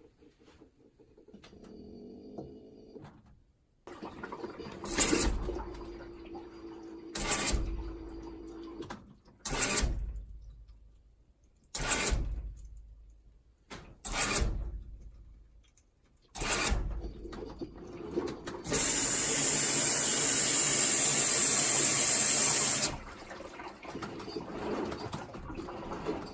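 LG WM2140CW front-loading washing machine starting up after a fill-valve repair: six loud clunks about two seconds apart, then water rushing in through the fill valve for about four seconds before cutting off.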